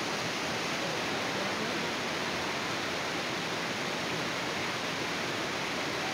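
A tall waterfall heard close up in its spray: a steady, even rush of falling water.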